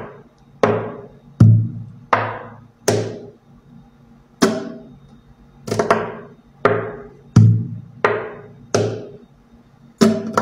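Nylon-string guitar strummed in single hard chords, each ringing out briefly, about one every second. Near the end a quick run of strums begins.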